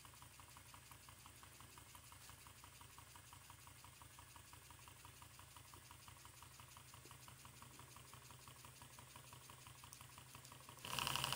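Twin-cylinder steam engine running with a faint, rapid, even beat of exhaust puffs and steam hiss. Near the end it abruptly gets much louder.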